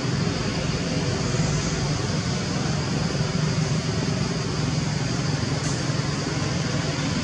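Steady outdoor background noise: a continuous low rumble with an even hiss above it.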